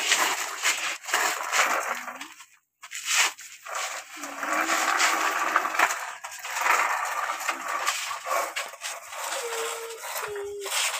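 Sand rustling and scraping as it is poured and pushed around plastic toy dump trucks, an uneven hiss that cuts out briefly about a quarter of the way in. A few short held tones sound near the middle and near the end.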